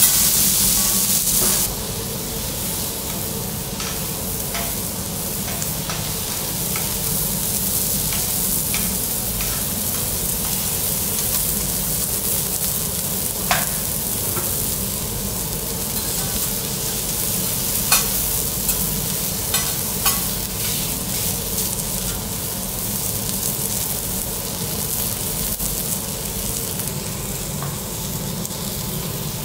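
Seafood sizzling and frying on a teppanyaki iron griddle as the chef turns it, with a louder steamy hiss for the first second or so that then settles to a steady fry. A few sharp clicks of the metal spatulas on the plate are heard now and then.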